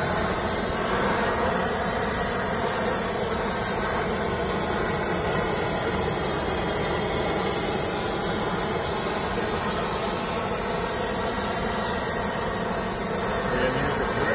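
Oxy-acetylene torch flame hissing steadily as it heats copper rod to a dull red to anneal it.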